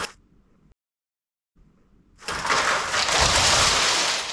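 Lego bricks crashing and clattering apart in a loud rushing wash of plastic clicks. It cuts off abruptly just after the start, falls to dead silence, then a second crash starts about two seconds in and runs on.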